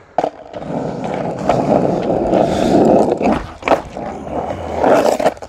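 Skateboard wheels rolling over rough asphalt after a push-off, a steady rumble. A few sharp clacks of the board in the second half as a trick is tried.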